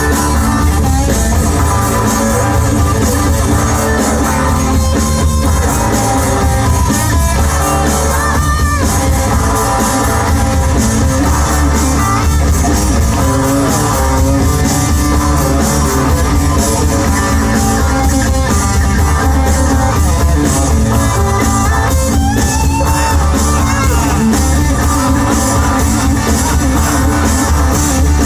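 Live rock band playing loudly, with singing and guitar over a heavy bass line.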